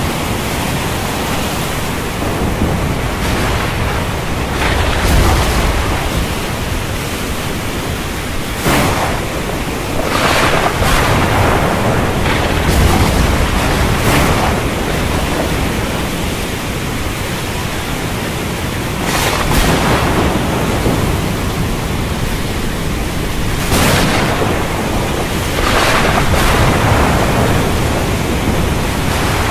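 Thunderstorm ambience: a steady rush of rain and wind, with low thunder rumbles swelling now and then and sudden louder hissing surges every few seconds.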